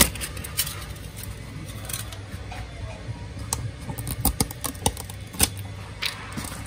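Irregular sharp clicks and rustles of hands handling a rewound speaker voice coil and peeling tape off its former, over a low steady hum.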